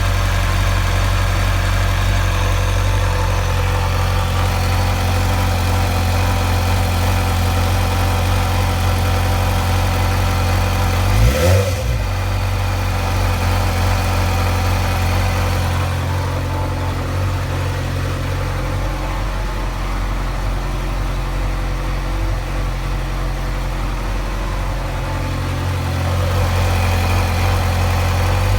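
2008 Suzuki GSX-R 600 inline-four idling, blipped once about eleven seconds in, the pitch rising and falling back to idle. It carries a rattle that the owner hears at idle and finds more noticeable when the throttle is let off.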